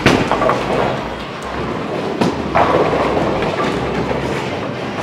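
Bowling ball rolling down the lane with a steady rumble, then crashing into the pins with a clatter about two seconds in, knocking them down for a spare.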